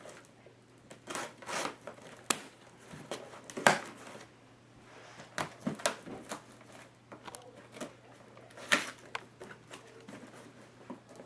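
A cardboard shipping box being opened by hand and its packing paper rustled and pulled out: irregular scrapes, crinkles and sharp clicks, with two louder snaps, one a few seconds in and one near the end.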